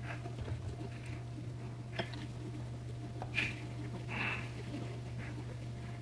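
Tomatoes and a ceramic bowl of cherry tomatoes being handled and set down on a wooden cutting board: a few light taps, then a brief rustle about four seconds in, over a steady low hum.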